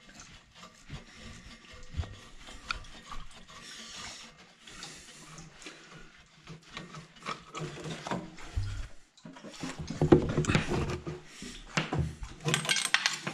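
Hand-tool work on an engine fitting: irregular clicks, scrapes and rubbing of a wrench and gloved hands unscrewing a part, with louder clattering bursts near the end.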